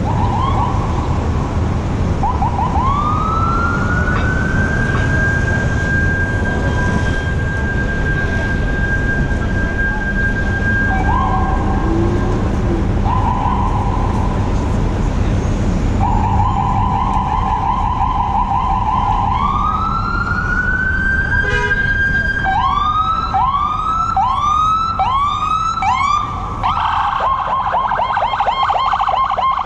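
Ambulance siren sounding in street traffic: a wail that rises and holds, cuts out and restarts a few times, then about three-quarters of the way in switches to a quick repeating whoop, about one and a half a second, and finally to a rapid yelp. Steady traffic and wind rumble underneath.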